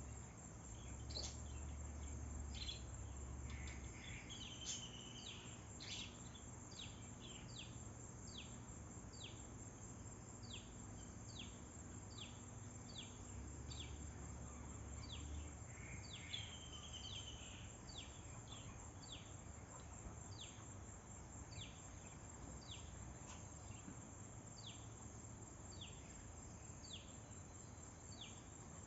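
Faint outdoor ambience: a bird repeats a short, high, falling chirp about once a second over a steady high insect hum. A low rumble comes and goes twice.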